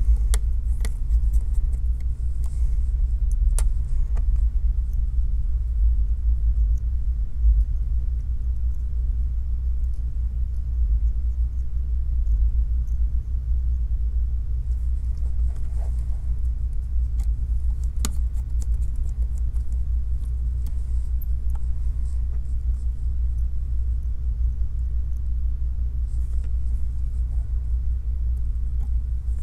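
A steady low rumble, with a few faint light clicks of a precision screwdriver and tiny screws on the phone's metal bracket.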